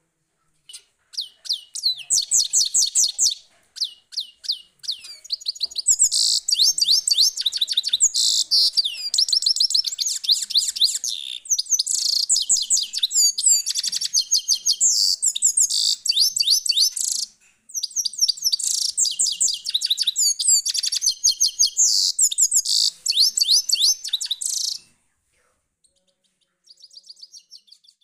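Goldfinch singing: long runs of rapid, high-pitched twittering with short pauses between them, ending in a brief quieter phrase.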